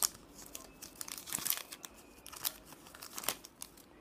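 Foil wrapper of a Pokémon card booster pack crinkling in the hands as the cards are slid out of it: a series of short, light crackles.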